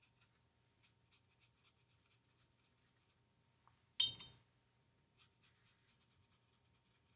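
A paintbrush tapped once against a glass water jar about four seconds in: a sharp clink with a brief glassy ring. Around it come faint scratchy strokes of a watercolour brush on paper.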